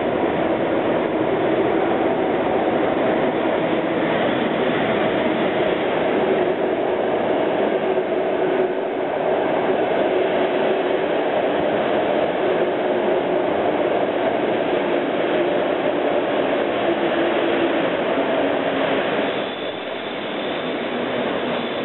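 Locomotive-hauled passenger train, an EP08 electric locomotive and coaches, running past along an underground station platform: a steady, loud rolling rumble of wheels on track, easing slightly near the end.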